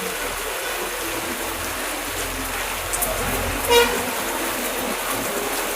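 Steady heavy rain hissing, with one short toot of a vehicle horn nearly four seconds in.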